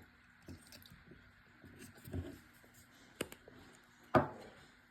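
Small plastic clicks and taps as a GoPro HERO12's battery and battery door are handled during a battery swap. A few soft clicks come first, then a sharp click a little past three seconds in and the loudest snap just after four seconds.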